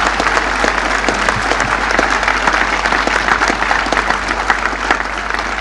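A crowd applauding, dense steady clapping that eases slightly toward the end.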